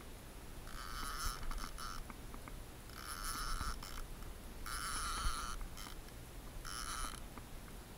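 Abu Garcia fishing reel whirring in four short spurts, each under a second and about two seconds apart.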